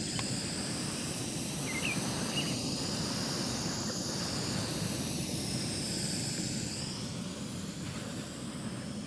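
Distant airplane droning steadily overhead, with a couple of short bird chirps about two seconds in.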